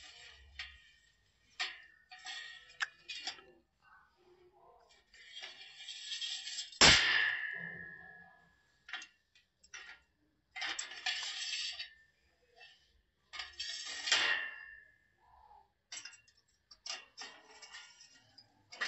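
Steel tubes of a welded stand frame clanking, sliding and scraping against each other as it is handled and adjusted: several knocks and stretches of metal rubbing, with the loudest clang about seven seconds in, ringing on afterwards.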